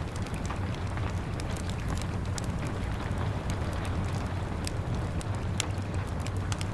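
Wood fire crackling with scattered sharp pops, over a steady wash of rain and a low rumble.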